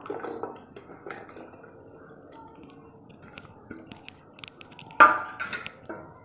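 Chopped vegetables and pieces being dropped into a cooker pot of water, with small knocks and clinks of utensils against the metal vessel. There is a sharp metallic clank with a brief ring about five seconds in.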